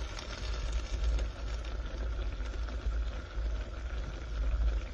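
Pot of rabbit stew simmering on the stove, a steady bubbling hiss with faint crackles.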